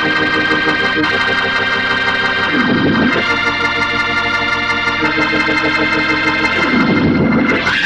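Background music of held organ chords that change every two to three seconds, with a sweeping swell about three seconds in and again near the end.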